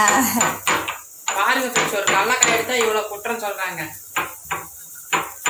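Stone pestle knocking and grinding in a stone mortar, crushing roasted peanuts and dried red chillies into a coarse powder: a run of sharp, uneven knocks.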